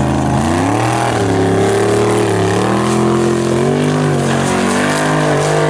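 Formula Offroad competition car's engine at high revs, its pitch rising and falling several times as the throttle is worked.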